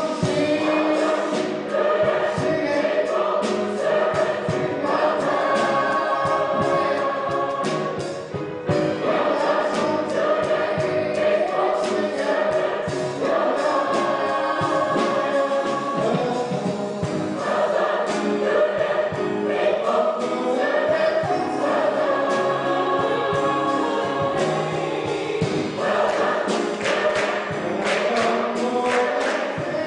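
Large mixed choir of young and adult voices singing, with a male soloist singing into a microphone. The singers clap their hands in time near the end.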